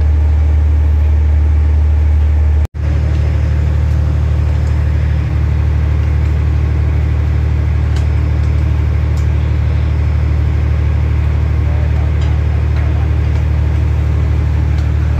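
Large engine running with a steady low drone, with a momentary drop-out about two and a half seconds in and a few faint metallic ticks later.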